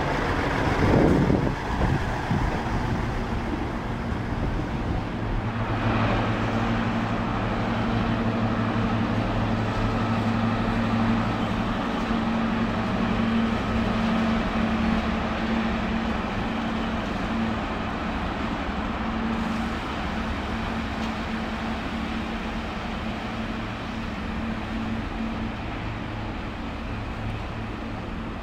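A Class 158 diesel unit rushes past close by. Then Class 55 Deltic locomotive D9009's twin Napier Deltic two-stroke diesel engines drone steadily as it hauls its coaches away, with the rumble of the coaches rolling past and the sound fading slightly near the end.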